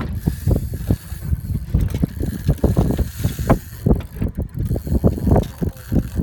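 Fishing reel being wound and worked against a hooked fish, an irregular run of mechanical knocks and clicks several times a second, with wind buffeting the microphone.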